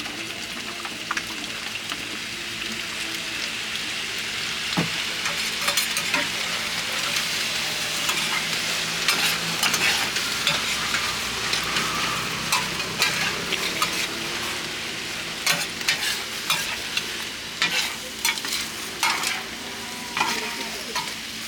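Organ meat (intestines and lung) sizzling steadily on a flat iron griddle, with frequent sharp scrapes and clicks of metal spatulas turning and stirring it, busier in the second half.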